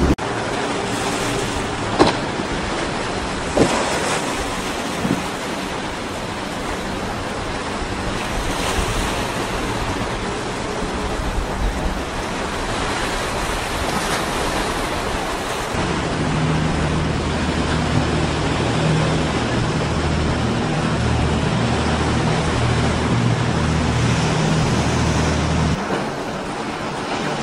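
Rushing surf, boat wake spray and wind on the microphone, with two sharp knocks in the first few seconds. From a little past halfway a motorboat's engine drones steadily for about ten seconds, then cuts off abruptly.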